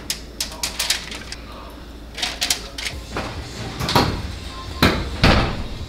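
Kitchen clatter: light clicks and taps of utensils and cookware, with a few heavier clunks near the end, over a low steady hum.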